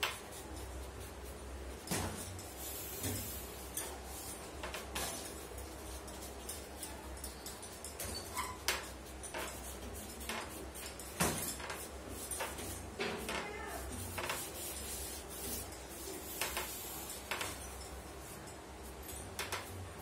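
Charcoal-drawing tools being handled: scattered sharp clicks and light clinks, with short scratchy strokes between them, over a steady low hum.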